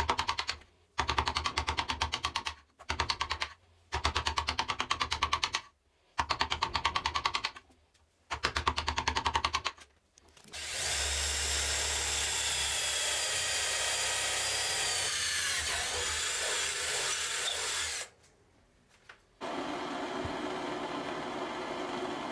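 A hand file rasping at a wooden handle scale clamped in a vise, in five bursts of quick strokes. Then an electric drill bores through the wooden scale and the cleaver's steel tang for about seven seconds, its pitch wavering under load near the end. After a brief pause, a steady lower hum.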